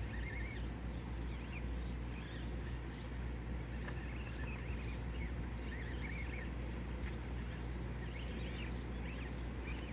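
Axial SCX24 micro crawler's small electric motor whining in short bursts of throttle as it crawls over rock, with small clicks of tyres and rock, over a steady low hum.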